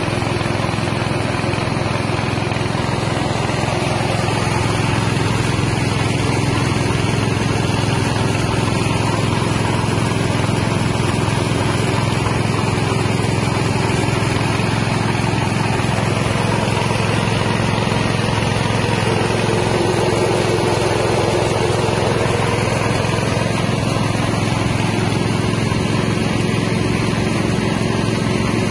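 Carlton mini rice milling machine driven by a small 6.5 hp engine, running steadily under load as it mills paddy into rice.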